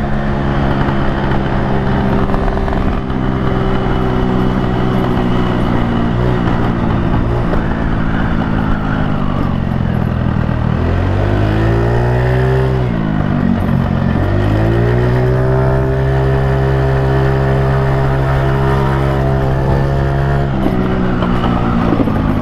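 A 50cc Kuba Blueberry scooter engine running through a newly fitted Akrapovic exhaust tube, with a small baffle insert at its inlet, while riding. The revs hold steady, fall away about ten seconds in, climb, dip once more and rise back, then ease off slightly near the end.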